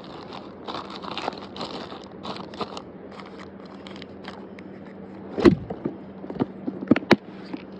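Hands tidying up fishing-gear scraps and packaging: irregular rustling and crackling with a few sharp clicks, the loudest about five and a half seconds in and near seven seconds, over a faint steady hum.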